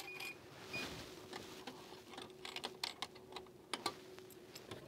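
Japanese drinks vending machine dispensing a hot bottled drink: a brief electronic beep at the start, then irregular mechanical clicks and ticks as the bottle is released and taken from the delivery flap, over a faint steady hum.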